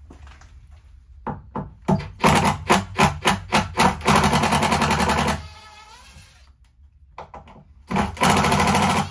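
Cordless drill-driver turning a screw: a string of short trigger bursts, then a run of about a second and a half that winds down, and another run near the end.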